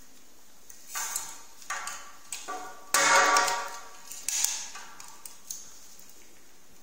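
Light metallic clicks and knocks from a hard disk in its sheet-metal mounting bracket being handled and fitted into place, a scattered series over the first five seconds or so. The loudest comes about three seconds in and rings briefly.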